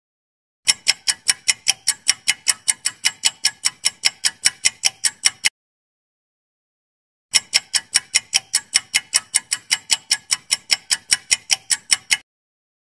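Countdown-timer clock-tick sound effect: rapid, evenly spaced ticks at about five a second. The ticks come in two runs of about five seconds, each broken off by a short silence.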